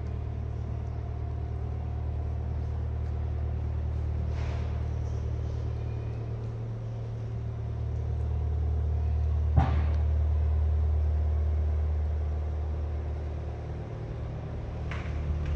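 Kubota EK1-261 compact tractor's diesel engine idling steadily, an even low rumble that swells a little midway, with one sharp knock about nine and a half seconds in.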